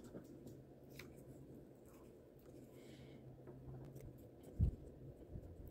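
Wooden craft stick scraping and tapping a gritty epoxy-and-kitty-litter paste into the mouth of a small plastic test tube as a rocket nozzle: faint scrapes and clicks, with one low thump about four and a half seconds in.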